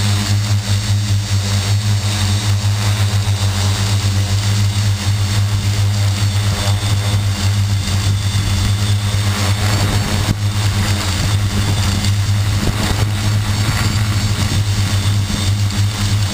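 Xaircraft X650 quadcopter's electric motors and propellers running at a steady hover, a loud even drone with a constant low hum, heard from the camera on the craft itself.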